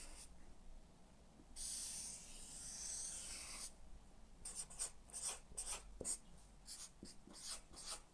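Marker pen on flip chart paper. About one and a half seconds in comes one long continuous stroke of about two seconds as a circle is drawn. Then comes a run of short quick strokes as numbers are written.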